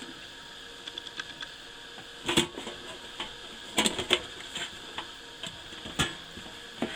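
Cassette deck's casing being handled as its top cover is taken off: scattered sharp clicks and clatters, the loudest about two and a half seconds in and a pair near four seconds in, over a faint steady hum.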